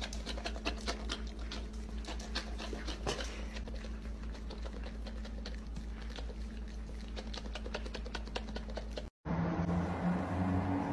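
A dog chewing and smacking its lips over food: a quick, irregular run of small wet clicks over a low electrical hum, which stops abruptly about nine seconds in.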